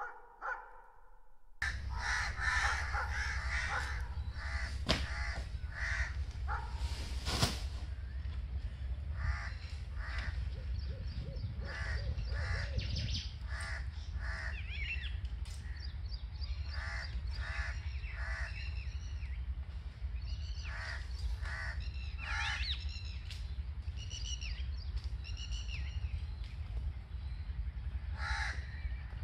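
Crows cawing again and again, short calls one after another, over a steady low hum. A couple of sharp clicks come in the first third.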